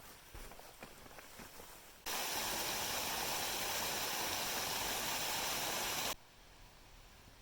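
Faint footsteps on a dirt trail, then about two seconds in a loud, steady rush of flowing water, like a stream or small cascade, that starts and cuts off abruptly about four seconds later.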